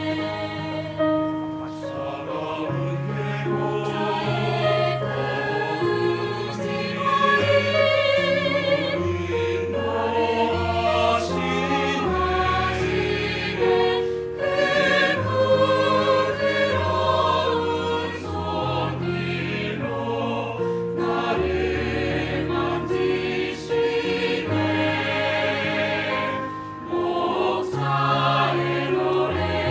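Four-part mixed choir (soprano, alto, tenor, bass) singing a slow hymn-like anthem in Korean, with piano accompaniment holding low notes underneath.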